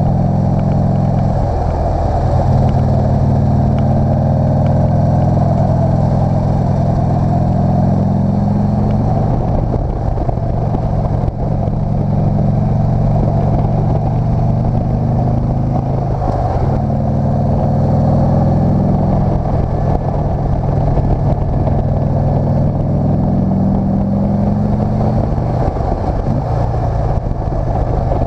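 Motorcycle engine running under load on a climb. Its note dips and picks up again about five times as the throttle is eased off and reopened.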